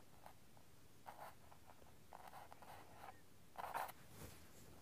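Faint strokes of a fine paintbrush on canvas: several short, soft brushing scratches, the loudest a little before the end.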